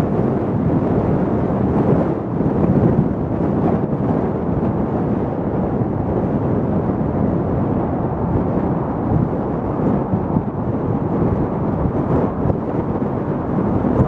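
Steady low rumble of road and wind noise from a car driving.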